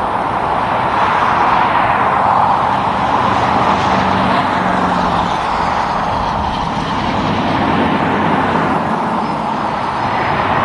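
Road traffic with trucks and cars passing: steady tyre and engine noise that swells and eases as vehicles go by, with a low engine hum from a passing vehicle about four seconds in.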